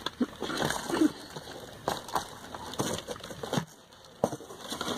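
Cosmetic bottles and a small cardboard box being moved about and set down on a shelf: a run of light knocks and rustles.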